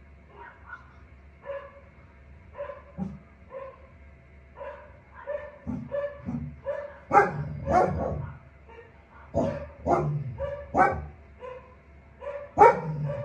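A dog barking over and over: short barks, fairly faint at first, growing louder and coming in quick clusters from about seven seconds in.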